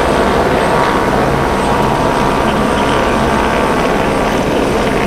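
Loud steady engine drone with a low hum, unchanging throughout.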